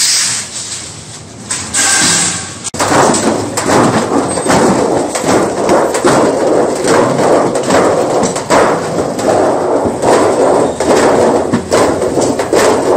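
Rapid, repeated metallic knocks of hammering on a rolled sheet-steel cylinder, starting abruptly about three seconds in and running on steadily.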